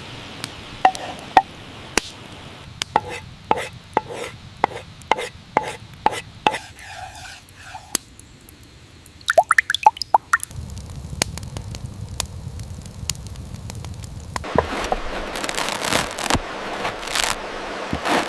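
Food-preparation handling during outdoor cooking: a run of sharp knocks at about two a second, then a quick cluster of ringing clicks about halfway through, then a steady hiss over the last few seconds.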